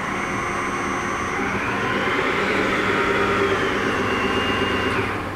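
Clausing Metosa 15 x 65 variable-speed engine lathe running under power with a steady hum and whirr from its spindle and drive. The running noise builds to a peak about halfway through, then dies away near the end.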